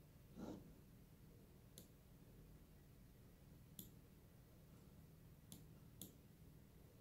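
Faint, sharp computer mouse clicks, four in all and the last two close together, over quiet room tone, with a short soft rustle about half a second in. The clicks go with the radio's frequency being stepped from the Ham Radio Deluxe screen.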